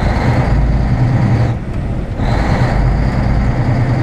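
Cummins ISX diesel engine of a Volvo 780 semi truck pulling away from a stop, heard from inside the cab, with a brief dip in the engine sound about halfway through.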